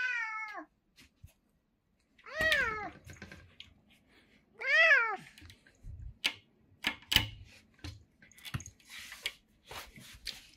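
Domestic cat meowing three times: the first call falls in pitch, and the second and third rise then fall. In the second half come a string of short sharp taps and knocks.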